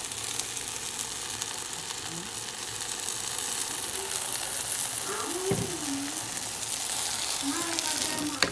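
Hot pan of scrambled egg and meat sizzling steadily as a blended tomato sauce is poured in and cooks.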